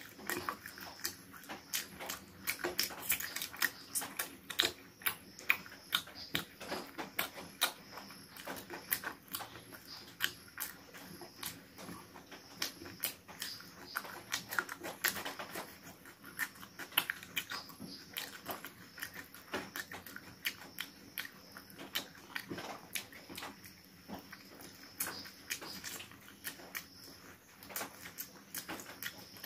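Close-miked eating: a man chewing, sucking and smacking on spicy chicken feet and leg pieces, making a quick, irregular run of wet smacking and crunching clicks.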